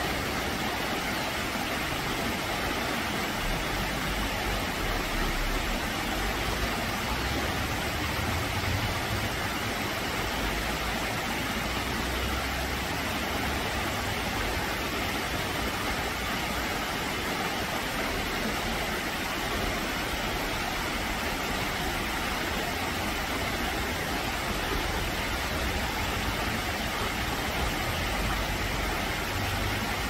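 Shallow rocky stream running in small cascades between boulders: a steady, even rush of water.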